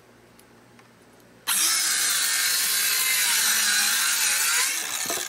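Ryobi circular saw cutting across a wooden board to length: it starts suddenly about a second and a half in, runs loud and steady through the cut for about three seconds, then drops off as the blade winds down near the end.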